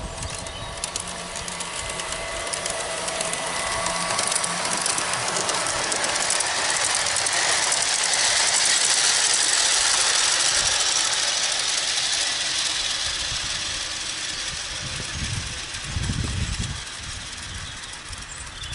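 G-scale model train rolling along garden-railway track: a steady rattling hiss of wheels on the rails that swells as the train nears, is loudest around the middle, then fades as it moves away. A few low buffeting thumps come near the end.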